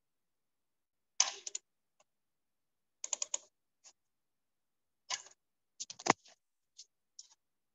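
Computer mouse and keyboard clicking in short clusters of a few quick clicks, every second or so.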